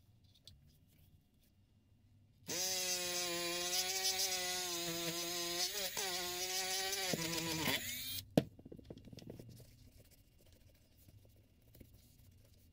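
Small electric rotary tool with a polishing wheel buffing a brass tape-measure end fitting: it starts about two and a half seconds in with a steady high whine, dips briefly midway, then winds down with falling pitch. A single sharp click follows.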